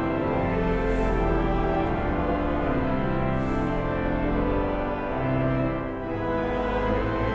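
Slow, sombre instrumental music: long held chords that change every second or so.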